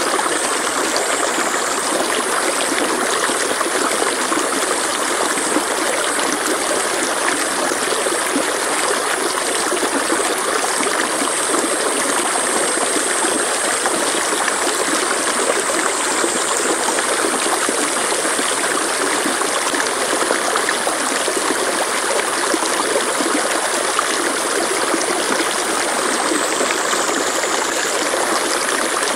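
Stream water flowing steadily: an even, unbroken rush of running water.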